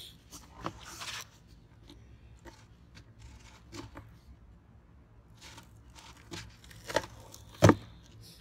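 Cardboard box being pried open at its stapled top with scissors and gloved hands: scattered scrapes, clicks and rasps of cardboard, with a sharp knock near the end as the loudest sound.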